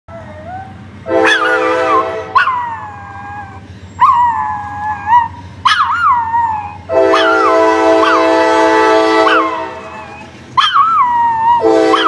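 Small dog howling in repeated wavering howls that rise and fall in pitch, set off by a train horn. The horn sounds a steady chord three times: a short blast about a second in, a longer one of more than two seconds about seven seconds in, and another starting near the end.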